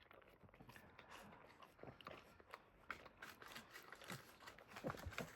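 Near silence with faint, irregular small clicks and rustles.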